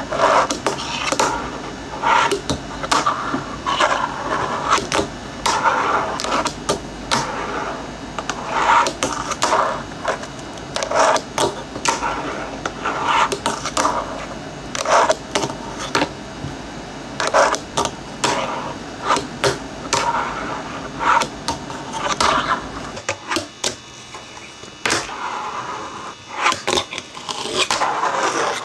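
Fingerboard skating on a wooden tabletop. Wheels roll, the board pops and lands with many sharp clacks, and it grinds and slides on a small metal rail and, near the end, on a concrete ledge.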